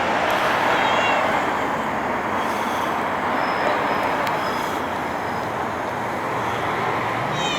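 Steady road traffic noise with a few faint short high calls. A cat starts to meow near the end.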